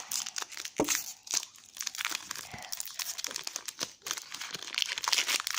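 Foil wrapper of a Pokémon TCG BREAKthrough booster pack crinkling and tearing as it is opened, a dense run of irregular crackles.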